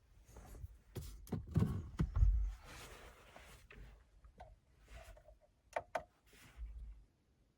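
Scattered light clicks, knocks and rustling from handling plastic dashboard parts and the MMI screen's wiring connector, fading to quiet near the end.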